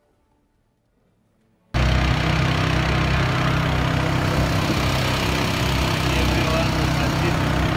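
Near silence for the first two seconds, then a boat's outboard motor cuts in abruptly, running steadily with a low hum under a constant rush of wind and water noise.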